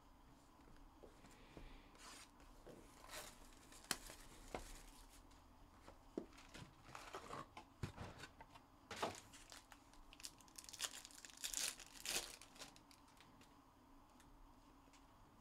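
2021 Panini Contenders Baseball hobby packs handled and torn open by hand: wrappers crinkling and tearing in a run of short rustles and taps, dying away in the last couple of seconds.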